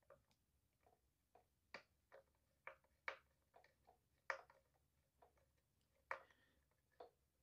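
Faint, irregular small clicks, roughly two a second, from a hand-turned five-sided security bit working out the screws of a Onewheel Pint's plastic controller cover.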